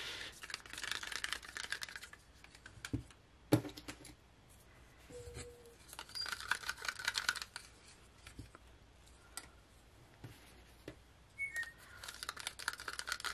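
Wooden craft stirring sticks clicking and scraping against the walls of plastic cups of acrylic pouring paint as the paint is stirred and the cups handled, in three spells of rapid clicking with a few sharper knocks. A couple of brief, faint squeaks come from a pet bird.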